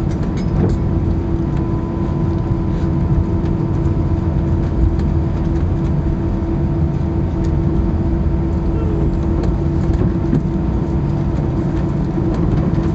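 Cabin noise of an Airbus A319 rolling out on the runway after touchdown, ground spoilers up: a loud, steady rumble of wheels and engines with a steady hum through it.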